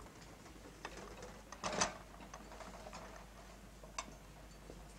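China and silverware on a tea tray clinking and rattling as the tray is carried across and set down: scattered light clicks, the loudest just under two seconds in and one sharp click about four seconds in.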